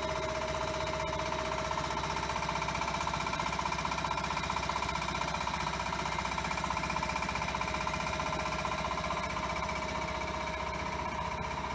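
Freshly rebuilt 5 HP belt-driven twin-cylinder piston air compressor running steadily, its pump giving a fast even pulsing under a steady whine.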